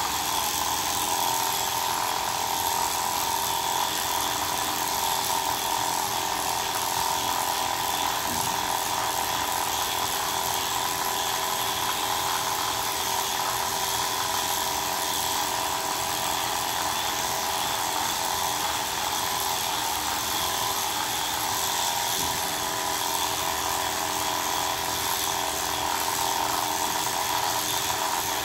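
Electric grooming clippers running steadily as they shave a Persian cat's coat, a constant buzz with no break.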